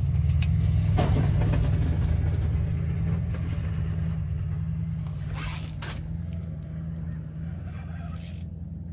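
A steady low engine hum that slowly fades, with two short high hissing bursts, about five and eight seconds in.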